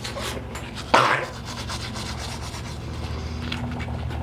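Toothbrush scrubbing teeth close to the microphone: quick, scratchy back-and-forth strokes, with one louder scrape about a second in.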